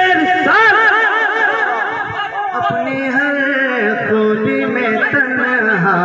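A man singing a naat unaccompanied into a microphone, in long, wavering, ornamented notes with no clear words.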